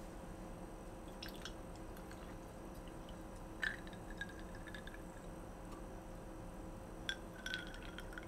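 A few light clicks and taps, two of them followed by a brief ringing tone, over a steady low hum.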